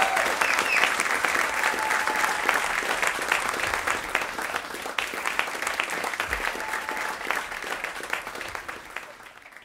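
Audience applauding at the end of a live jazz song, the clapping gradually dying down and fading out near the end.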